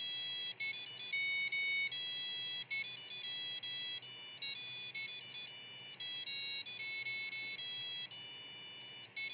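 Piezo buzzer on an Arduino Uno playing a song note by note with the tone() function: a quick string of high, buzzy electronic beeps that change pitch every fraction of a second, with short gaps between notes.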